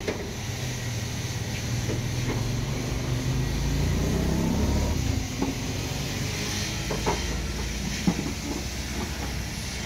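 Mazda light truck's engine idling steadily, a low even hum, with a few short sharp clicks over it in the second half.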